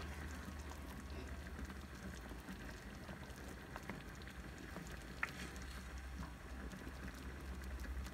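Thick carrot-and-milk gajrela bubbling faintly as it simmers in a pan, with a wooden spatula stirring through it and a few light clicks against the pan, over a low steady hum.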